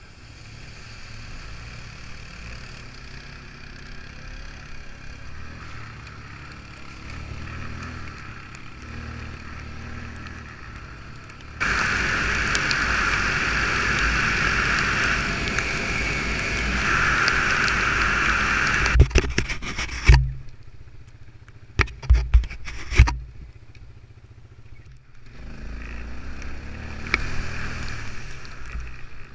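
ATV engine running while the quad is ridden over rough tracks, heard from a camera mounted on the machine with wind and tyre noise. Partway through it turns suddenly much louder, then a handful of sharp knocks and clatters follow before it drops back to quieter running.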